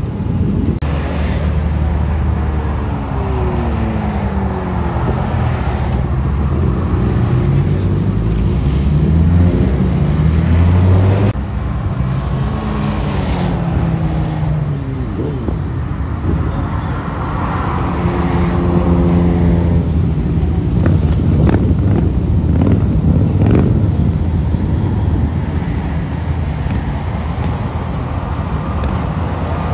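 BMW S1000RR inline-four superbike revving as it pulls away, its engine pitch rising and falling through the gears. After that, several motorcycles pass by on the highway with their engines running, one after another.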